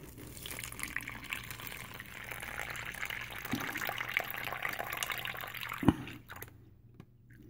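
Water poured from a cup into a plastic MRE hot beverage bag: a steady pour that stops about six seconds in, just after a short knock.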